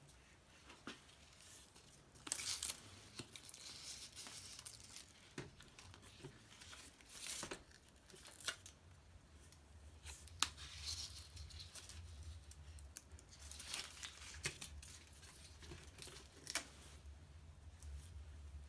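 Handlebar tape being pulled taut and wound around a road bike's drop bar: irregular short rasps and crinkles as the tape is stretched and pressed onto the bar, every second or two.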